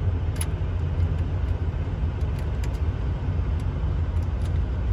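A diesel truck engine idling with a steady low rumble, with a few faint light clicks of small metal hardware.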